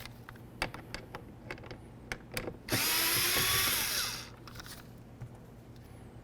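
A few light clicks of a driver bit seating in a Phillips screw, then a power screwdriver runs for about a second and a half, backing the screw out of the inside door handle.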